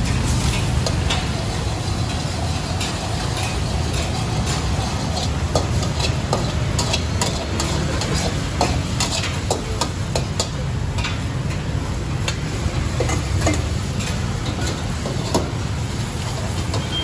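Metal spatula scraping and clanking against a steel wok while egg and noodles sizzle in hot oil, in many quick irregular strokes. A steady low rumble runs underneath.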